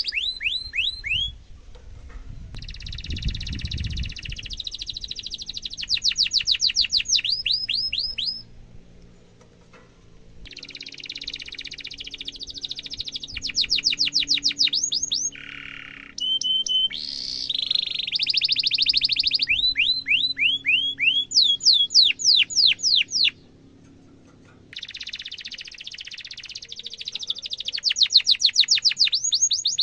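Domestic canary singing long rolling song: buzzy trills alternating with fast runs of falling whistled notes, in three long phrases with two short pauses.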